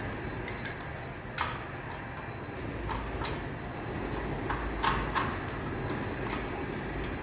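Light metallic clicks and clinks of wheel nuts being fitted by hand onto a car's rear wheel studs, about a dozen at irregular intervals, the sharpest a pair about five seconds in, over a steady low workshop hum.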